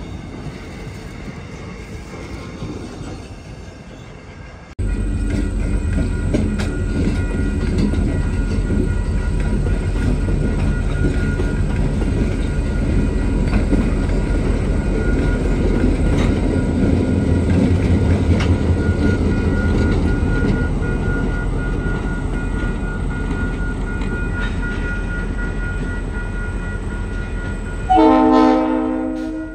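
The tail of a passing electric commuter train, then, after a sudden jump in level, the loud low rumble of several orange CSS EMD Geep diesel-electric locomotives working past. Near the end the lead locomotive gives a single horn blast lasting about a second and a half.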